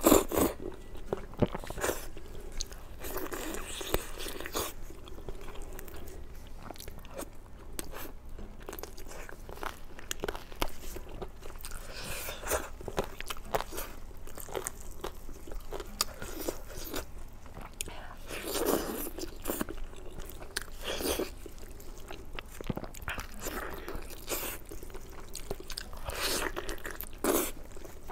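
Close-miked eating: a person biting and chewing kiln-roasted chicken, with crunching and wet mouth clicks, in repeated bouts.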